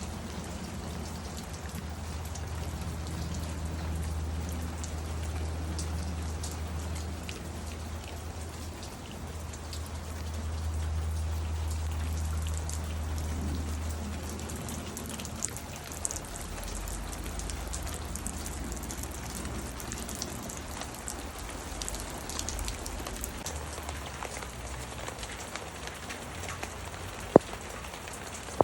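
Steady heavy rain falling, with scattered sharp drips, a low hum under it that fades about halfway through, and one sharp knock near the end.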